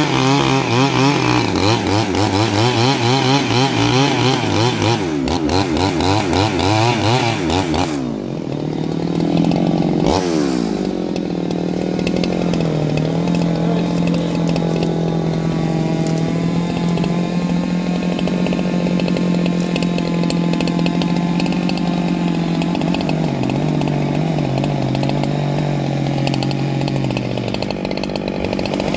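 Neo-Tec 395-clone two-stroke chainsaw cutting into a log under load, its engine note wavering as the chain bites. About eight seconds in it comes out of the cut and runs on at a steady high speed, with a few brief dips.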